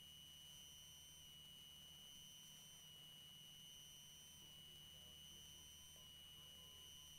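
Near silence: only a faint, steady high-pitched whine and a low hum, with no other sound.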